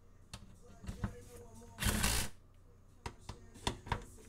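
Hand tools working the exhaust bolts under a car: scattered light metallic clicks, with a short rasping burst about two seconds in and a quicker run of clicks near the end.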